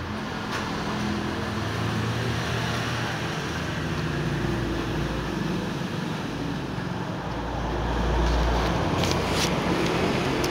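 Steady motor-vehicle engine hum and traffic noise, growing louder for a second or two about eight seconds in.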